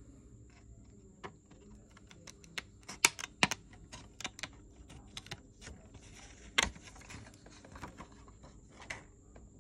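Scissors snipping through a thin plastic sheet: a run of irregular sharp clicks and snips, the loudest about three seconds in and again between six and seven seconds.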